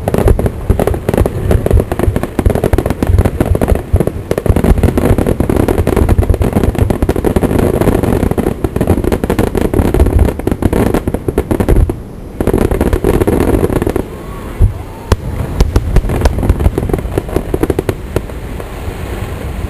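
Aerial fireworks going off in rapid, near-continuous bangs and crackles. The barrage eases briefly about twelve seconds in, then goes on thinner and quieter toward the end.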